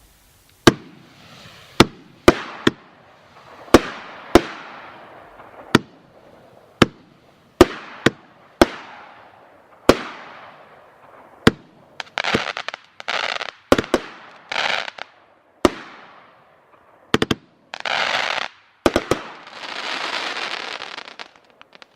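A 500-gram 'Lead Poisoning' consumer fireworks cake firing its shots: sharp bangs come every second or so, each followed by a fading crackle. From about halfway on it gives way to dense crackling bursts, the last of which dies away shortly before the end.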